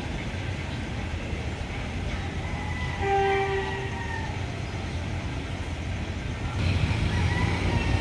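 A horn blows once, a single steady note lasting just under a second, over a steady low rumble.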